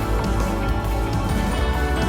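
Background music with a steady, strong bass.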